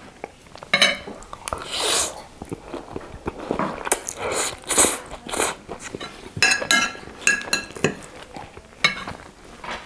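Close-miked eating of spaghetti: slurping noodles in, with wet chewing between. Metal forks scrape and clink on the ceramic plate, with several short ringing clinks about two-thirds of the way through.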